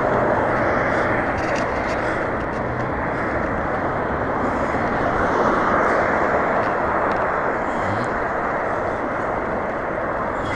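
Steady rushing wind noise on an action camera's microphone while riding a bicycle along a road. It holds even throughout, with no distinct events.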